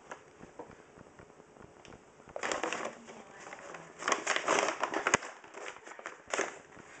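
Paper grocery bag crackling and crinkling in bursts as it is pushed about with a cat moving inside it: quiet for the first couple of seconds, then three bouts of rustling, the loudest a little past halfway, the last brief.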